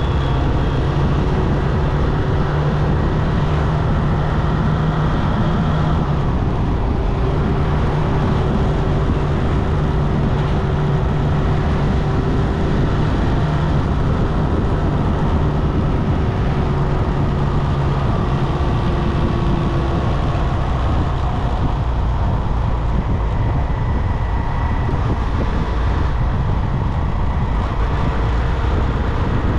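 Motorcycle engine running at riding speed under wind and road noise, its note changing briefly about six seconds in and again around twenty seconds.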